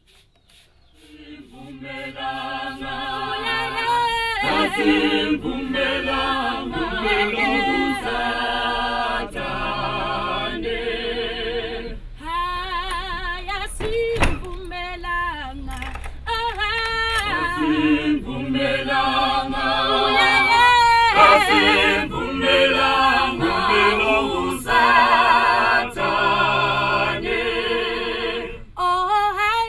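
A small mixed choir of men's and women's voices singing a cappella in harmony, phrase after phrase with short breaths between.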